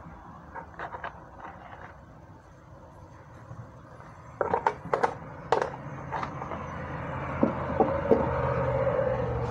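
Handling noises while bay leaves are taken out of their packaging: scattered clicks and light rustles, with a few sharper clicks about four and a half to six seconds in. A faint steady hum comes in near the end.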